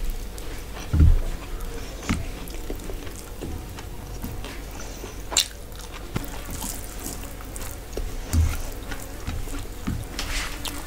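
Close-miked hand-eating sounds: wet chewing and mouth smacks, with fingers squishing rice and curry on a steel plate. Scattered small clicks and a sharp click midway, and two soft low thumps, the loudest about a second in.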